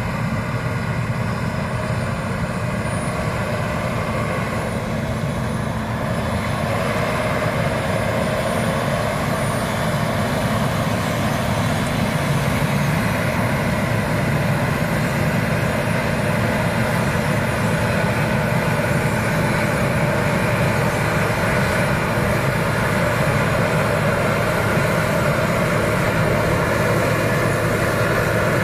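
Claas Lexion 460 combine harvester running steadily while cutting wheat, a continuous dense machine rumble that grows slightly louder about halfway through.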